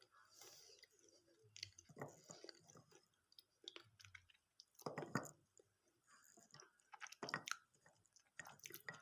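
Chewing on water-soaked slate pencil pieces: soft, wet chewing with little crunch, in several short bursts, the loudest about five and seven seconds in.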